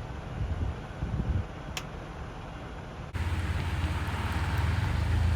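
Outdoor traffic noise: a low vehicle rumble with wind on the microphone. About three seconds in it switches abruptly to a louder, steadier rush of vehicle and water noise.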